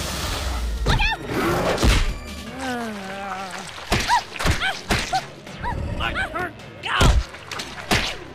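Cartoon action sound effects: a series of heavy thuds and impacts, about 1, 2, 4, 4.5, 5, 7 and 8 s in, with short yells and creature vocal sounds between them, over background music.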